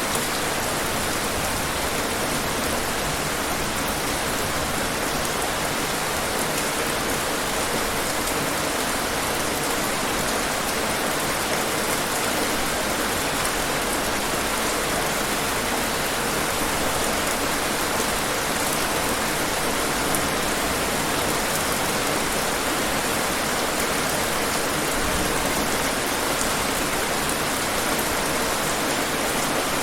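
Steady rain falling and pattering on hard surfaces, an even hiss with faint scattered drop ticks.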